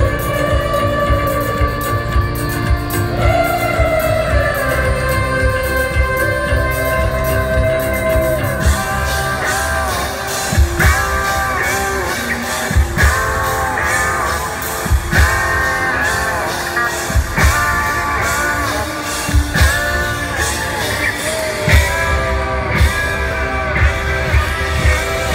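Live rock band playing in an arena, with a lead vocal, guitar and keyboards; a strong, regular drum beat stands out from about ten seconds in.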